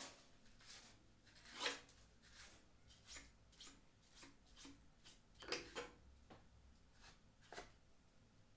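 A paintbrush sweeping metal chips off a 3D-printed plastic chip cover: faint, soft brush strokes at an irregular pace, the strongest about a second and a half in, stopping shortly before the end.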